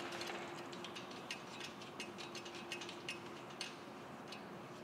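Light, irregular metallic clicks, several a second, of a spanner and hand working the threaded nut of a grit blaster's airline hose fitting loose. A faint steady hum runs underneath.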